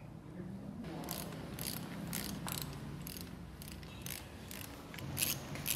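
Ratchet wrench clicking as a bolt on the engine's front end is run in, in repeated short bursts about two a second.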